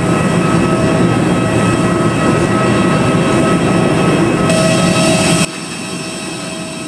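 Loud steady rumbling vehicle noise with a faint steady hum tone on top. It drops suddenly to a quieter steady hum about five and a half seconds in.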